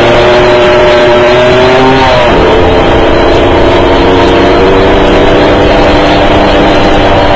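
An engine pulled hard at high revs: its pitch climbs, drops at a gear change about two seconds in, then climbs slowly again.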